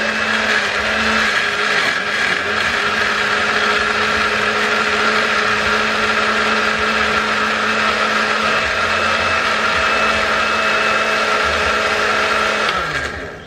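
Electric blender running at full speed, puréeing kale leaves with coconut water into juice, with a steady motor hum under the churning. Near the end it is switched off and the motor winds down, its pitch sliding down as it stops.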